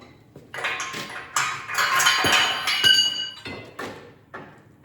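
Metal parts and tools clanking and clinking in a run of irregular knocks, several leaving a brief metallic ring, loudest in the middle.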